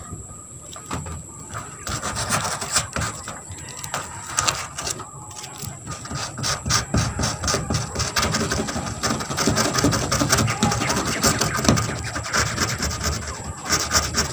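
Sandpaper scraping back and forth on a rusty corrugated metal roof sheet in quick, continuous strokes, heavier in the second half. The rust is being sanded off around a small hole to clean it before sealant is applied.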